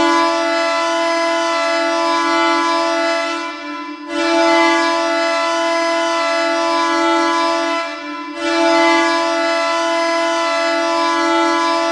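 Hockey arena goal horn sounding three long, steady blasts of about four seconds each, with short breaks between them.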